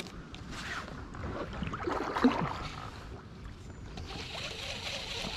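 Wind rumbling on the microphone and water lapping against a plastic kayak hull, with a few knocks, the loudest about two seconds in, and a steady hiss from about four seconds in.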